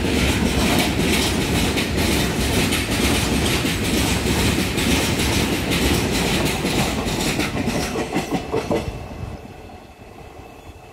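A long freight train's covered wagons rolling past, their wheels clacking steadily over the rail joints over a loud rumble. A few stronger clacks come near the end as the last wagon goes by, then the sound drops away quickly as the train moves off.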